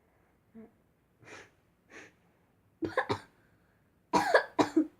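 A girl coughing in two short fits, the second the louder, after breathing in talcum powder. A couple of faint sniffs come first.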